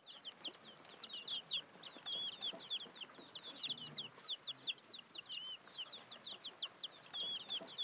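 Small birds chirping in a busy chorus, many quick high chirps and short whistled glides overlapping several times a second.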